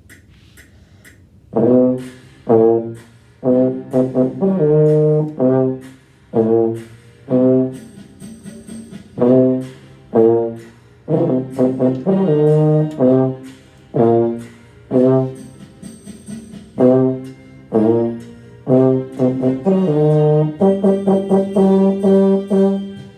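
Trombone playing a bluesy phrase of short, detached notes in repeated groups, starting about a second and a half in. It ends on a long held low G near the end.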